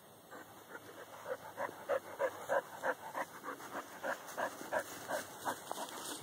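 Dog panting quickly, a regular run of short breaths about three a second that starts about a second in and stops shortly before the end.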